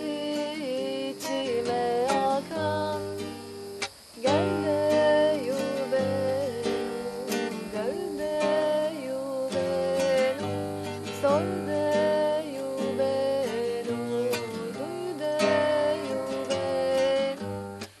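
Nylon-string classical guitar strummed, with a woman singing a melody over it; the music drops briefly about four seconds in.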